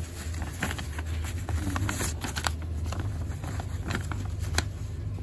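Ballpoint pen writing on a hand-held sheet of paper, with the paper rustling as it is held: scattered light scratches and clicks over a steady low hum.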